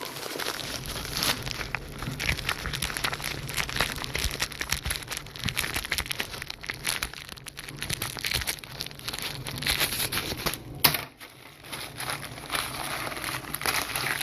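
Packaging crinkling and crackling as it is worked open by hand, with one sharp snap about eleven seconds in.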